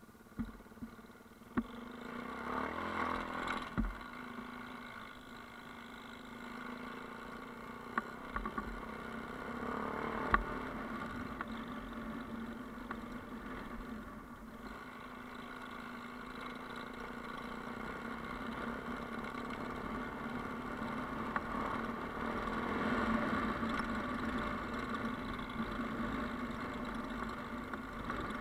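An off-road vehicle's engine running steadily under load as it climbs a rough gravel track. A few sharp knocks from the track surface are heard, the loudest about ten seconds in.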